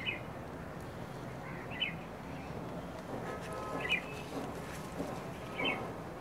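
A bird chirping: four short, high calls about every two seconds over a faint steady background.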